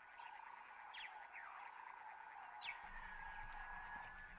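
Faint night-time animal chorus: a steady trill with a few short, falling chirps above it.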